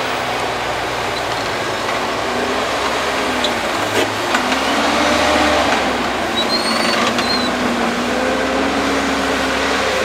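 Large tractor with a push blade running under steady load as it climbs and packs a haylage pile: a continuous engine sound with a slowly wavering pitch, over a dense rushing noise.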